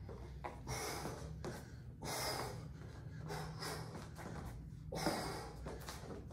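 A man breathing hard from exertion while doing kickboxing strikes and burpees: sharp, hissing exhales every second or two.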